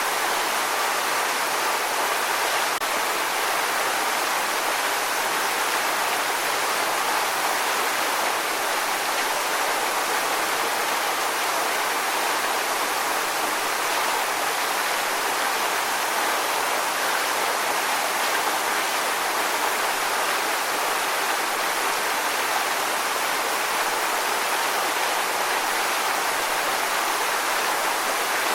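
Waterfall: a steady, even rush of falling water, hissy and light in the low end, with no change throughout.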